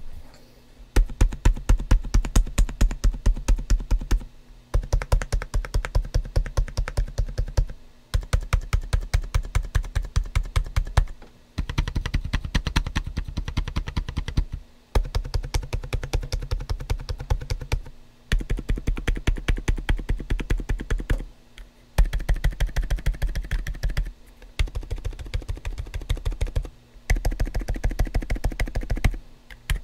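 Rapid typing on a GAS67 mechanical keyboard modded to be quiet, with Gazzew Bobagum silent switches, o-ringed Timeless Violet PBT keycaps, cork tiles and an IXPE switch sheet: muted, low keystrokes. The typing comes in bursts of about three seconds with short pauses between them.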